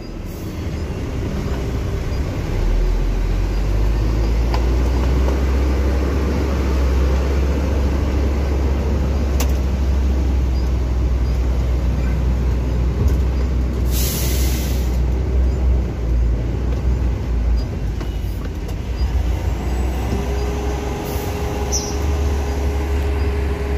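Concrete mixer truck's diesel engine heard from inside the cab, a low steady rumble that builds as the truck pulls away and creeps forward. A short hiss of compressed air comes about halfway through, and a steady whine joins near the end.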